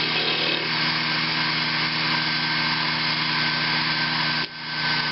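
Sherline mini lathe running steadily while a 3/8-inch drill bit in the tailstock bores through spinning 6061 aluminum: a steady motor hum under a hiss of cutting. The sound dips briefly near the end, then picks back up.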